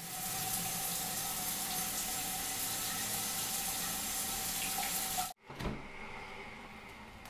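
Overhead rain shower head running, water falling steadily onto a tiled shower floor as an even hiss with a faint steady tone under it. It cuts off suddenly about five seconds in, leaving a quieter steady hum with a knock just after.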